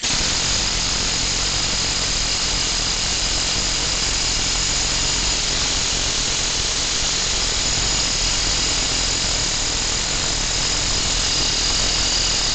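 A junk two-stroke chainsaw engine running fast on compressed air, about 90 psi, fed through a spring check valve in the spark plug hole. A loud, steady rush of escaping air with a high whine over it, starting suddenly.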